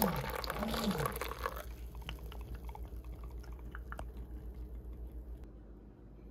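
Coffee machine dispensing coffee into a ceramic mug with its pump humming; the flow stops abruptly about one and a half seconds in, followed by a few light drips and clicks.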